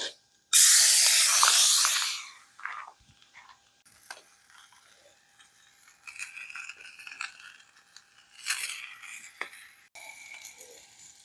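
Food-preparation handling noises: a loud burst of rustling from about half a second in, lasting about a second and a half and cutting off suddenly, then quiet scattered clicks and light rustles.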